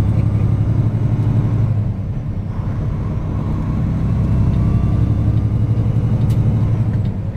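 Semi-truck's diesel engine running steadily at highway speed, heard from inside the cab, with tyre and road noise.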